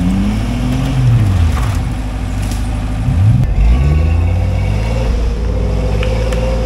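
Off-road 4x4 engine revving up and down several times, with a steadier running note in between. A Jeep Cherokee is stuck in deep mud and failing to climb out.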